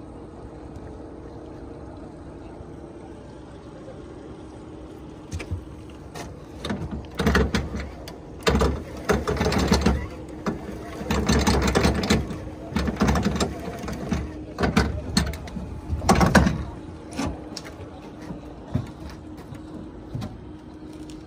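Boat motor running steadily at trolling speed, a low even hum. Through the middle it is overlaid by a long stretch of loud, irregular bumps and rustles.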